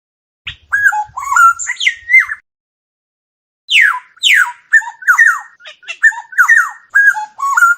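Oriole calling: quick fluty whistled notes with falling and rising slurs, in two bursts, the first starting about half a second in and the second from about the middle on, with dead silence between them.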